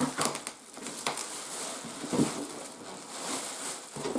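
Plastic packing film rustling and crinkling as it is handled and pulled out of a cardboard box, with a few sharp crackles and a short low bump about two seconds in.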